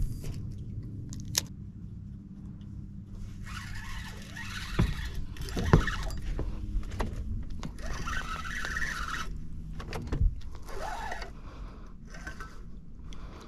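Steady low hum of a small motor, with two stretches of hissing noise and a few sharp knocks.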